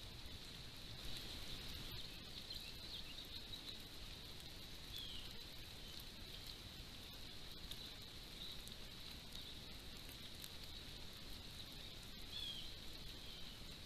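Steady chorus of insects trilling high and even over low hiss, with a couple of short chirps about five seconds in and near the end.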